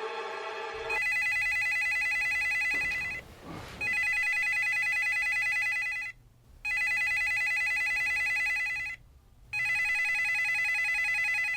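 Telephone ringing with a fluttering electronic ring tone: four rings of about two seconds each with short gaps between them, beginning about a second in after a short stretch of music.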